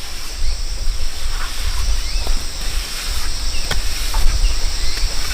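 Steady high insect chorus of crickets or cicadas, with a few short chirps, over a low rumble. There is a single sharp click about three and a half seconds in.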